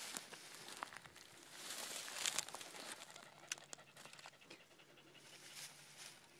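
A dog panting, soft and quick, with a few sharp clicks.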